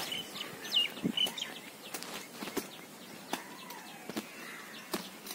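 Birds chirping in short calls that slide downward in pitch during the first second and a half, then scattered small clicks and scrapes of hands working dry, stony soil.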